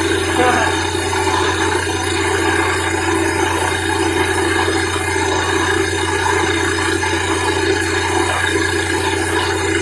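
Borewell drilling rig running steadily: a constant low machine drone with an even rushing hiss over it.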